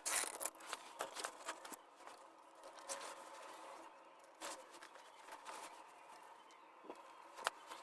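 Faint clicks and light handling noise of wires and terminals being fitted by hand while the amplifier setup is wired up, several in quick succession at first, then only a few scattered ticks.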